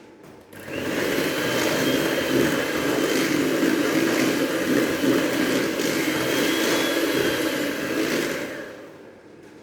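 Electric mixer running steadily as it mixes banana cake batter after the dry ingredients have gone in, with a faint steady whine over the motor noise. It starts about a second in and stops shortly before the end.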